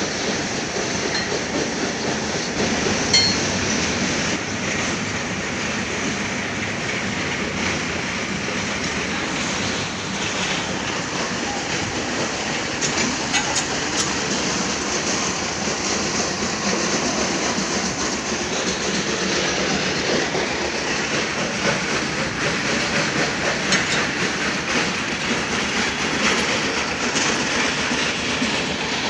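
Machinery running with a steady, noisy rattling clatter, broken by occasional sharp clicks and knocks.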